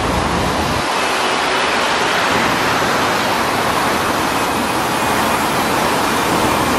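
Steady hiss of passing road traffic on a city street, with a deeper rumble that fades about a second in.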